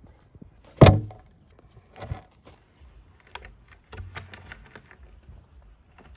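A heavy wooden log post being handled: one loud thud about a second in, a softer knock about a second later, then scattered light knocks and scrapes of wood.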